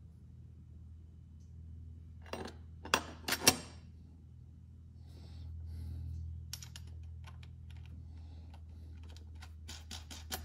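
Small metal clicks and clinks of steel nuts and washers being handled and fitted onto a brake booster's mounting studs: a few sharp clinks between about two and three and a half seconds in, then a run of lighter ticks near the end, over a steady low hum.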